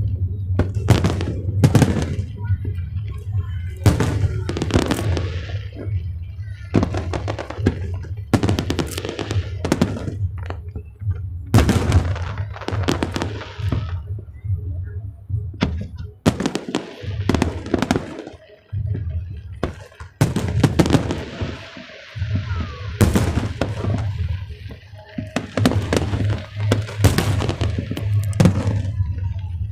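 Fireworks bursting one after another, sharp bangs with echoing tails, over background music.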